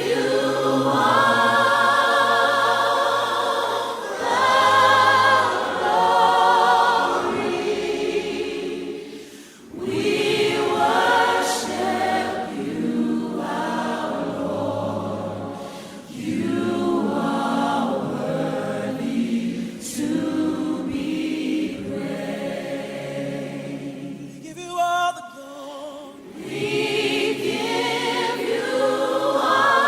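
Voices singing a slow worship song in long held phrases with a wavering pitch. There is a short break between phrases about a third of the way in, again about halfway, and again near the end.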